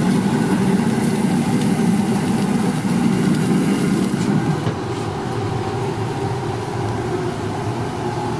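Steady, even hum of a running machine, such as a fan or motor, easing slightly about four and a half seconds in.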